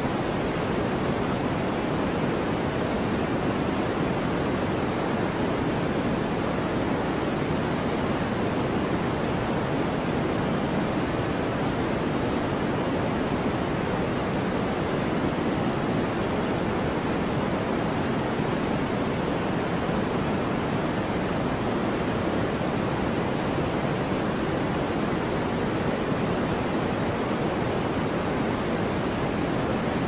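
Continuous white noise for sleep: an even, unchanging hiss weighted toward the deeper end, with no separate drops, gusts or events.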